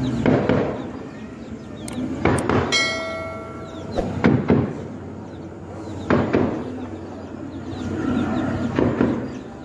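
Gunfire in a heavy-calibre firefight: single shots and quick pairs every second or two, each echoing. About three seconds in, a bell-like ding rings for about a second.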